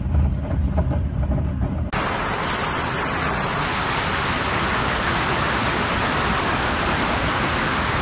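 Typhoon storm noise: for the first two seconds a low rumble of wind and waves crashing over a seawall. Then it switches to a steady, loud hiss of wind-driven water.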